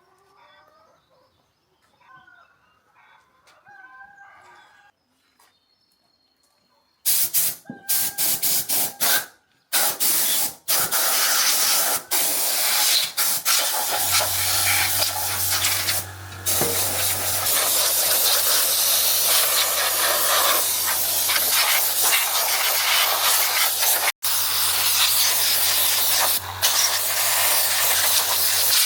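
Loud hiss of a high-pressure jet, starting about seven seconds in as short bursts, then held almost without a break, with a low steady hum joining partway through.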